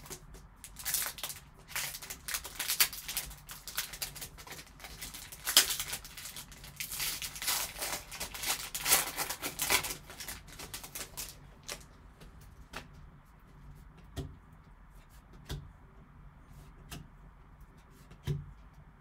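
Foil trading-card pack being torn open and crinkled in the hands, a dense crackling for about ten seconds. After that, scattered light clicks and taps as the cards are pulled out and handled.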